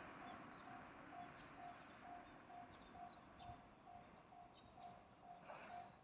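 Japanese railway level-crossing warning bell ringing steadily, about two tones a second, signalling an approaching train. Faint bird chirps over it.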